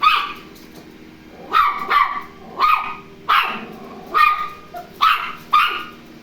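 Toy terrier barking at a robot vacuum cleaner: about eight short, high-pitched barks in an uneven series.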